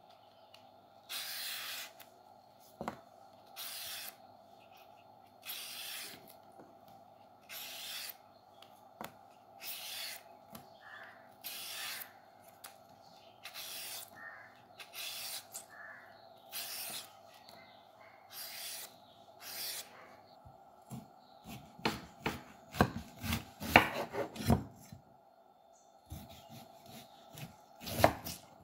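Y-peeler scraping long strips of skin off a cucumber, one stroke about every two seconds. In the last third, a kitchen knife cuts lengthwise through the peeled cucumber, with a quick run of sharp knocks on a bamboo chopping board and one more loud cut near the end. A faint steady hum lies under it all.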